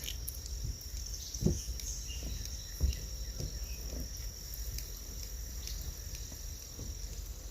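A steady high insect trill that stops near the end, over a low rumble. Two short knocks come about a second and a half and three seconds in.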